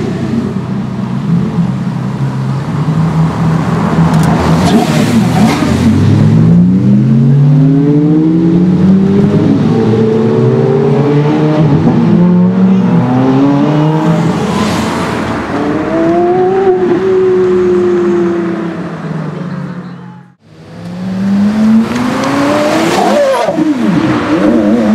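Porsche Carrera GT's V10 engine accelerating hard, its pitch climbing repeatedly through upshifts. The sound breaks off briefly about twenty seconds in, then another hard acceleration follows.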